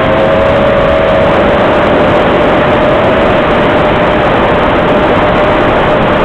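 X250 quadcopter's motors and propellers running: a loud, harsh rushing noise with a steady whine that drops a little at the start, then holds level.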